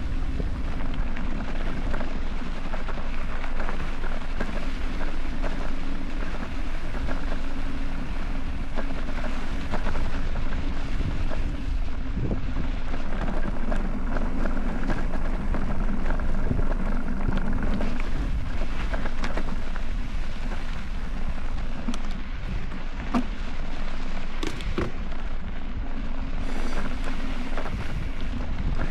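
Mountain bike tyres rolling fast over a dry dirt trail, with wind rushing on the action camera's microphone. Scattered clicks and rattles from the bike come through, several close together near the end.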